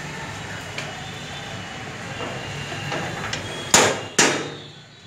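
Two sharp, loud knocks about half a second apart, three-quarters of the way through, each ringing briefly, over a steady background noise.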